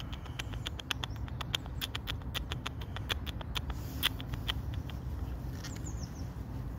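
Squirrel gnawing on food: a quick, irregular run of crisp clicks that thins out after about four and a half seconds, over a steady low background rumble.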